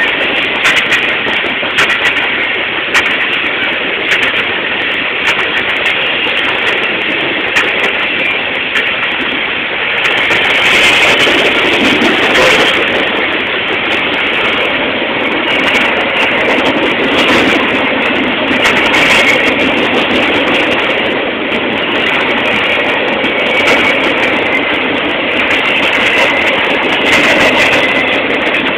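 Freight train cars rolling past at close range: a steady rumble of steel wheels on the rails, with irregular clicks as the wheels pass over the track.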